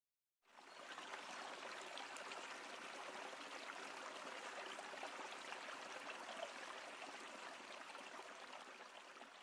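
Flowing river water: a steady, faint rushing that fades in about half a second in and eases slightly toward the end.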